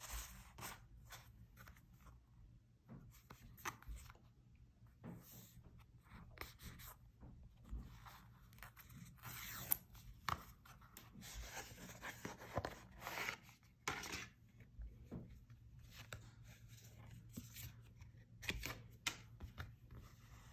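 Paperboard packaging of an Apple Polishing Cloth being handled and opened by hand: irregular rustling, sliding and scraping of cardboard with occasional light taps. Near the end the cloth is drawn out and unfolded.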